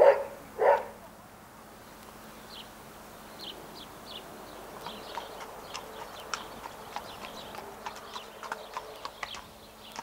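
A dog barks twice, then small birds chirp faintly, with scattered short light clicks.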